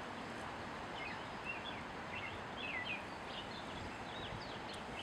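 Steady wind noise outdoors with short, high chirping bird calls scattered throughout.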